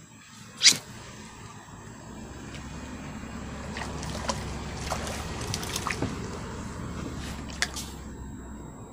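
Hooked crucian carp thrashing at the water's surface on a pole-rod line: irregular splashing and sloshing that builds from about two seconds in and eases off near the end. A sharp click, the loudest sound, comes about a second in.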